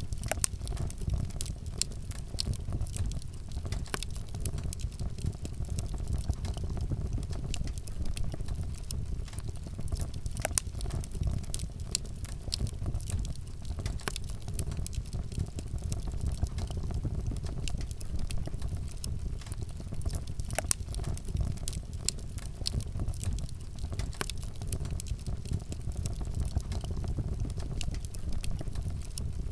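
Wood fire burning: a steady low rumble of flames with frequent irregular crackles and pops from the burning wood.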